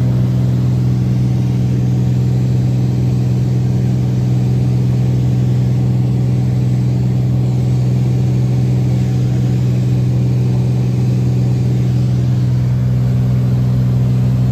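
Single-engine propeller plane's engine and propeller droning steadily in cruise, heard inside the cockpit: a loud, even low hum that does not change.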